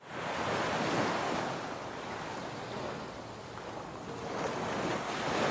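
Ocean surf breaking and washing up a sandy beach, a steady rush of waves that swells about a second in and again near the end.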